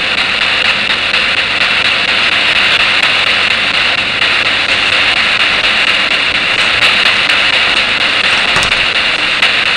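Spirit box sweeping through radio frequencies: a loud, steady rush of static with faint clicks from the sweep.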